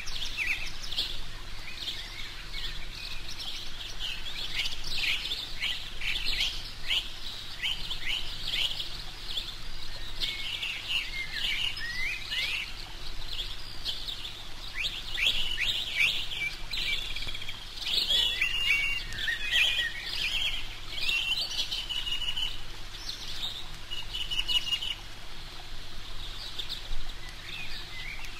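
Small birds chirping and twittering, with many short, quick calls repeating throughout, over a faint steady low hum.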